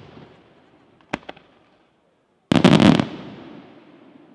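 Aerial firework shells bursting: two sharp bangs about a second in, then a rapid run of loud bangs lasting about half a second, each dying away in a long echo.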